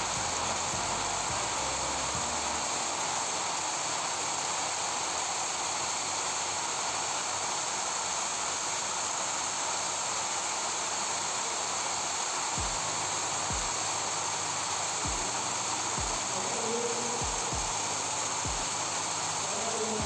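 Steady hissing background noise inside a closed-house chicken barn, with a few brief low thumps in the second half.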